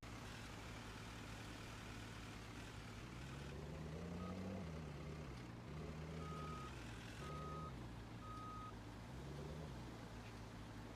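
A steady low machine hum, with a motor whose pitch rises and falls several times, and a few short high beeps about a second apart partway through.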